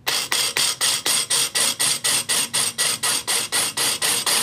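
Metabo BS18LTX Quick cordless drill in impulse mode, drilling into a glazed ceramic tile: the motor pulses stop-start about five to six times a second so the bit grips the shiny surface instead of skidding.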